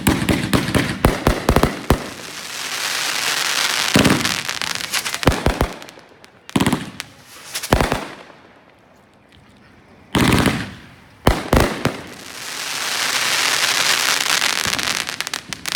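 Fireworks going off: several sharp bangs, each followed by rapid crackling pops and a long hiss that swells and fades away. There is a quieter lull of about two seconds in the middle.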